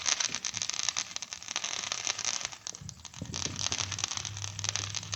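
Fireworks crackling continuously, a dense run of small pops and sizzle. A low steady hum joins about three seconds in.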